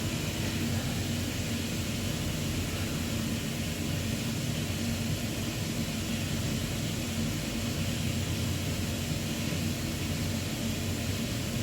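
Boiler plant-room machinery running with a steady mechanical hum and rush of air, carrying a low steady tone, with no change in level.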